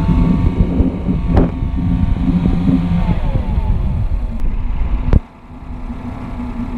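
Honda 30 hp four-stroke outboard engine running with its leg in a bucket of water, being tested after its float bowls were drained. The engine note falls about three seconds in, and after a sharp click a couple of seconds later a quieter, steady hum carries on.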